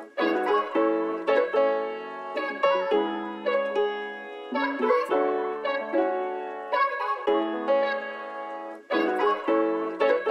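Background music played on piano, a melody with chords and a fresh note struck every half second or so.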